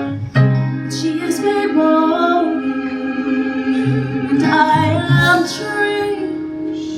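Female-led vocal ensemble singing slow, held notes in harmony, with little or no instrumental accompaniment.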